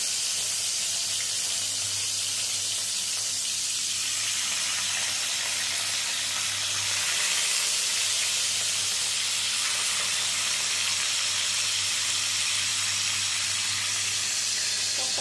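Marinated rohu fish steaks sizzling in hot mustard oil in a wok as more pieces are laid in: a steady frying hiss, with a low steady hum underneath.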